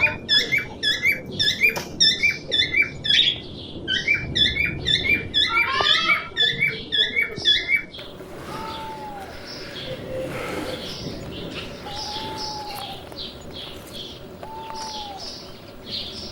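Small birds chirping: a loud, rapid run of repeated chirps for about the first half, then, after an abrupt change, quieter high twittering with a short arched whistled note every few seconds.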